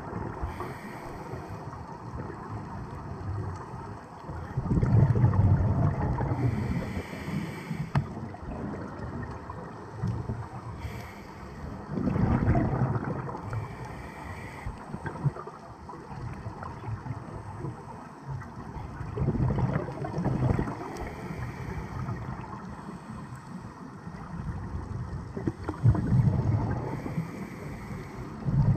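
Scuba regulator breathing heard underwater: loud rumbling bursts of exhaled bubbles come about every seven seconds, with a low steady hiss between them.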